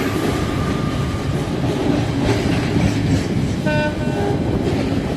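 Diesel train sound: a steady low engine rumble, with a short two-tone horn blast about three and a half seconds in.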